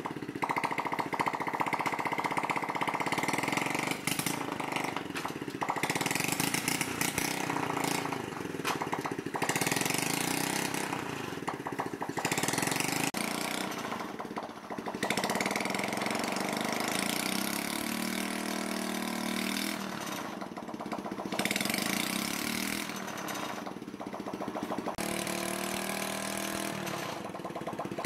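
Honda Chaly's small single-cylinder four-stroke engine running with the bike up on stands, its speed and pitch rising and falling several times.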